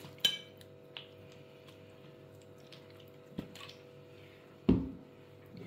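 Soy sauce poured from a bottle onto raw pork ribs in a glass dish: faint dripping and a few small clicks, with one louder knock about five seconds in.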